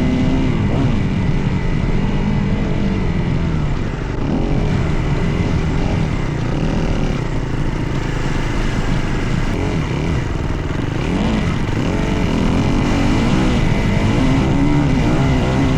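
Dirt bike engine running under load, its pitch rising and falling again and again as the throttle is worked on the trail, over a continuous low rumble.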